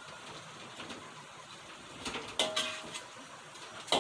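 Metal spatula stirring chicken in a wok: two sharp clangs of the spatula against the metal pan, about halfway through and again near the end, each ringing briefly, over a faint steady sizzle of frying.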